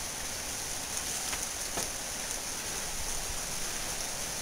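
Steady heavy rain falling, a hiss with a few faint drips and ticks.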